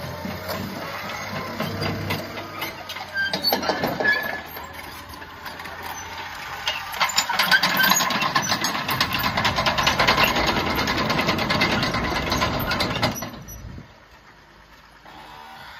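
2013 Caterpillar D6N LGP crawler dozer on the move: its diesel engine running under a rapid, dense clatter of the steel track links. The clatter is loudest in the middle and drops off sharply near the end.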